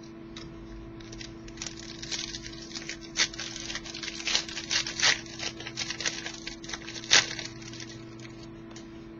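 Trading cards being handled and flipped through: a run of light rustles and clicks, the sharpest about three, five and seven seconds in, over a steady electrical hum.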